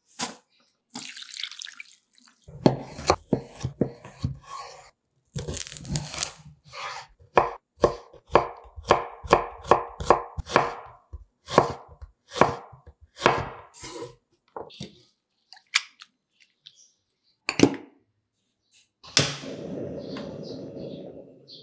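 A chef's knife chopping onion on a bamboo cutting board, sharp strikes coming about two to three a second at the busiest. Near the end a gas stove burner runs under a wok with a steady rush.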